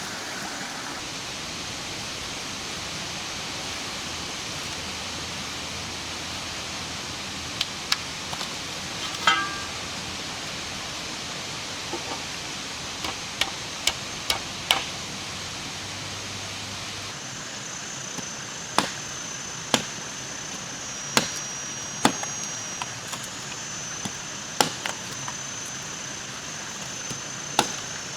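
Sharp chopping strikes over a steady background hiss: a few scattered blows at first, then a regular run of single strikes about one to one and a half seconds apart in the second half.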